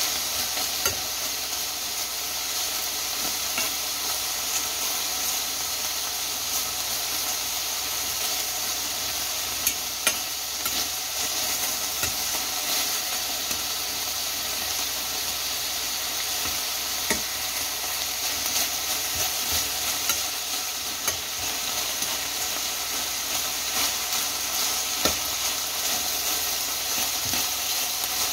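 Cubes of beef chuck flap and chopped vegetables sizzling steadily in a stainless steel frying pan, with scattered clicks and scrapes of metal tongs against the pan as the pieces are turned.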